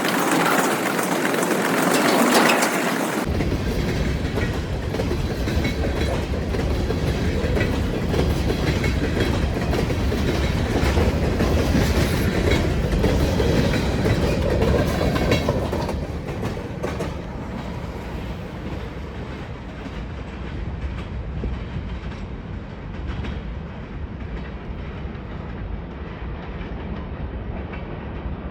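Freight train rolling past on the mainline, its wheels clacking over the rails. The sound changes suddenly about three seconds in, stays loud, then fades in the second half before cutting off.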